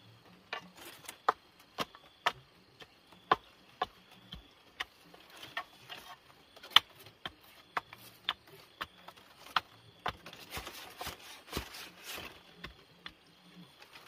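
A run of sharp knocks of a hand tool striking, irregular at about two a second, with a denser, rougher patch of strikes and scraping about ten seconds in.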